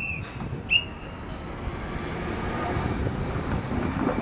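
Low, steady rumble of a light truck driving past close by, growing louder toward the end as it passes. A brief high whistle tone sounds about a second in.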